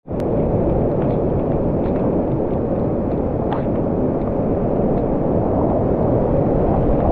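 Loud, steady rush of whitewater around a kayak running a steep creek rapid in high water, cutting in abruptly at the very beginning.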